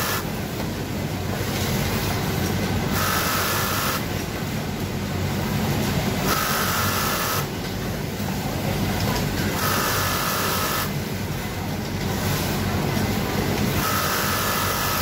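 Brother twin-needle industrial lockstitch sewing machine topstitching a fabric waistband, running in stretches of two to three seconds with short stops between, over a steady factory machine hum.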